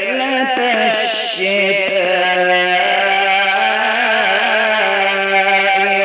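Quran recitation (tilawat) in a melodic chanted style: a single voice holding long, drawn-out notes whose pitch wavers and bends in ornaments.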